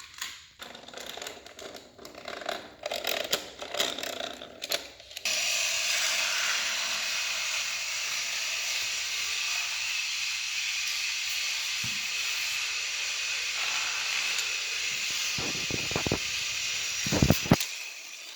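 Battery-powered Trackmaster toy engine running on plastic track: its small motor and gears whir steadily, starting abruptly about five seconds in, after some clicking and clattering. A few sharp knocks near the end.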